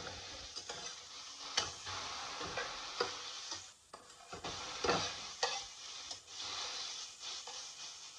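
Diced chicken and chopped red onion sizzling in oil in a metal pan, with a spatula stirring and scraping across the pan's bottom in several sharp strokes.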